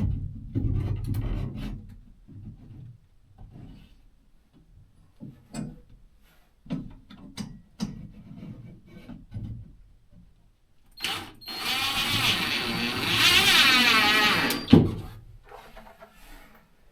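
Scattered knocks and clicks of a wire shelf and its hardware being handled, then, about eleven seconds in, a power drill runs for about four seconds with a wavering whine, driving a screw.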